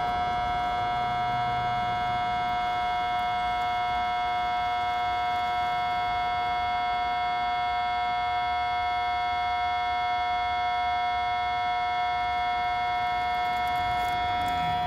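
Steady electrical hum with a high whine from a homemade hot-wire foam cutter's power electronics, a microwave-oven transformer and a small motor speed controller, running at maximum power while the wire cuts foam.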